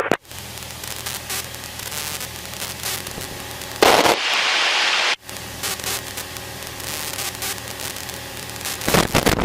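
Light aircraft's piston engine droning steadily through the headset intercom, with crackling static over it. About four seconds in, a loud burst of radio static hiss lasts just over a second and cuts off sharply.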